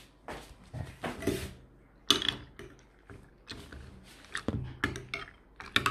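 Metal spoon stirring cornflakes and milk in a bowl: a string of clinks, scrapes and knocks against the bowl, with a sharp clatter about two seconds in.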